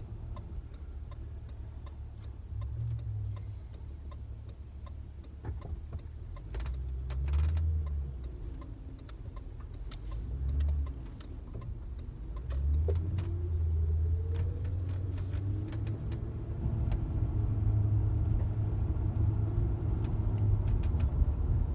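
Car driving, heard from inside the cabin: a low engine and road rumble, with the engine note rising as the car speeds up about halfway through.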